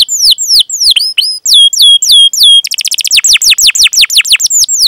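Domestic canary singing a loud, rapid song of repeated downward-sweeping whistled notes. About halfway through it gives a few slower notes that drop and hold their pitch, then breaks into a very fast trill.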